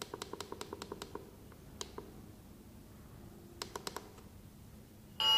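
Plastic push buttons on a Rehabor K3 Pro wall-mounted infrared thermometer clicking as they are pressed in quick succession, about eight clicks a second for the first second, one more click, then a cluster of four near four seconds in, while its settings are stepped through. The thermometer starts an electronic beep just before the end.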